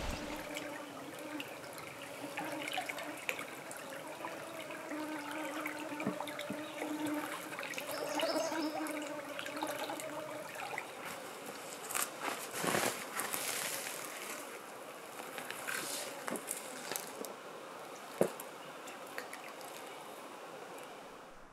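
Small woodland brook trickling and babbling over its bed, a steady rushing hiss of running water. A faint steady hum runs through the first half, and a few sharp clicks come about two-thirds of the way through.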